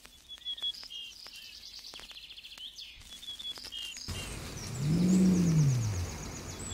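Small birds chirping and trilling, many short high notes and rapid trills throughout. About four seconds in, the background noise steps up, and a loud, low, drawn-out tone rises and then falls in pitch.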